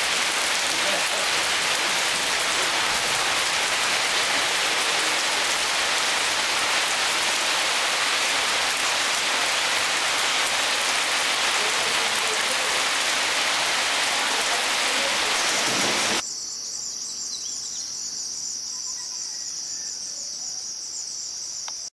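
Heavy rain pouring down in a steady, loud hiss. About sixteen seconds in it cuts off abruptly to a quieter night chorus of insects, crickets keeping up a steady high-pitched trill.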